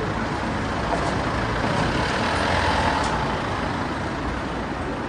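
Car park ambience with a motor vehicle driving past, its noise swelling to a peak about halfway through and then fading, with a few faint clicks.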